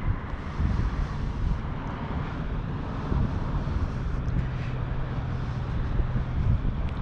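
Wind rumbling on the microphone, with a faint steady engine hum from a distant vehicle in the middle.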